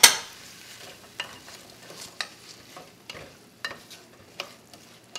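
Wooden spoon stirring chopped vegetables in a hot, oiled enamel pot: irregular scrapes and knocks against the pot over a faint sizzle. A sharp clatter opens it, the loudest sound.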